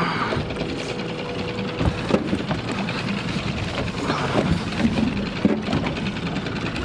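Fishing boat's outboard motor running steadily, with a few scattered knocks of handling.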